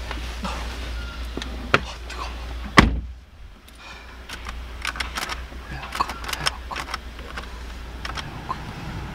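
A car door is shut about three seconds in with one loud thud, and the outside rumble drops away at once. It is followed by a run of small clicks and knocks from handling things inside the closed cabin.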